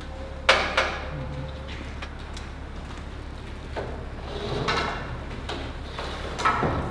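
Metal clanks and a sliding scrape from a casket lift as workers move a casket toward a mausoleum crypt. There are two sharp clanks about half a second in, a longer scraping slide around the middle, and another clank near the end.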